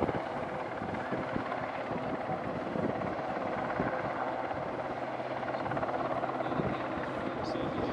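Westland Sea King search-and-rescue helicopter hovering low over the sea: steady rotor and turbine noise that holds at one level.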